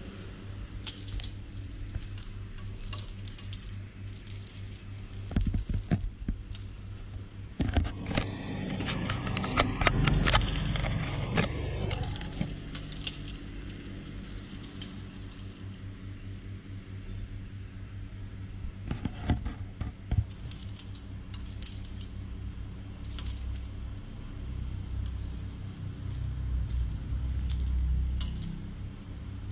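A small bell jingling in short, irregular shakes during play with a cat. A louder scuffling noise comes about eight to twelve seconds in.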